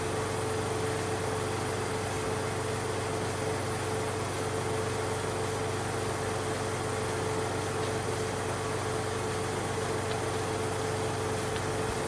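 Air compressor running steadily to drive the chemical pump while pre-treatment is sprayed: an even mechanical hum with one constant mid-pitched tone.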